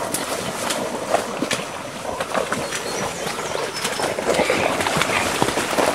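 Leaves and branches rustling and snapping as a person pushes through dense swamp brush on foot, with a few faint high chirps about halfway through.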